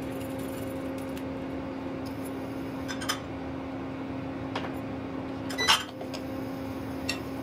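A few sharp metal clinks and knocks as a steel grater and a spatula strike a nonstick frying pan while garlic is grated into it and stirred, the loudest knock about three-quarters of the way in. A steady low hum sits underneath.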